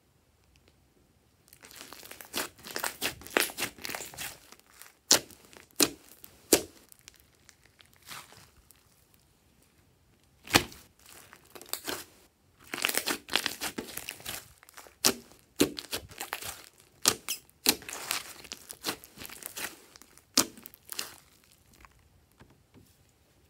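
Glossy slime being stretched and pressed, giving irregular sticky crackles and sharp pops as trapped air bursts, with several loud single pops scattered through. It begins after about a second and a half of near silence.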